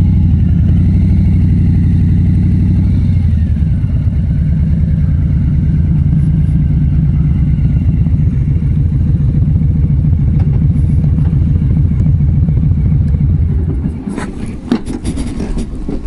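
Harley-Davidson Street Bob's Milwaukee-Eight V-twin idling with a steady, uneven beat, then cutting off about fourteen seconds in, followed by a few light clatters and knocks.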